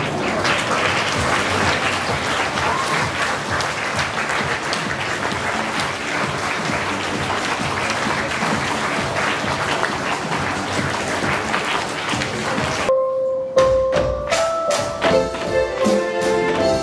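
Audience applause, which cuts off abruptly about thirteen seconds in as recorded dance music starts: clear held melody notes over sharp percussive taps.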